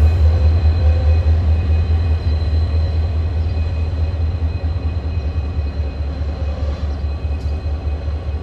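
SSR CLP-class diesel-electric locomotives, EMD two-stroke V12 engines, running as the train pulls away slowly. Their deep, steady engine rumble gradually fades.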